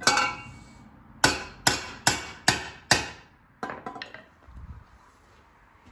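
Hammer striking the end of a stainless steel pipe against a small anvil to flatten it: six ringing metal blows, one at the start and then five in quick succession about twice a second. A few lighter knocks follow just after the middle.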